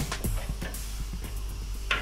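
Background music with a drum beat.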